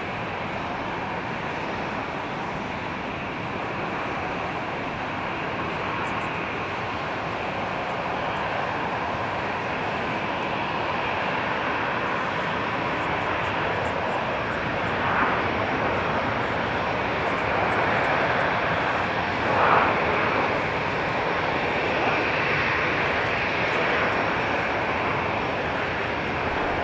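Jet airliner engines running with a steady rushing noise that slowly grows louder, with two short louder moments past the middle.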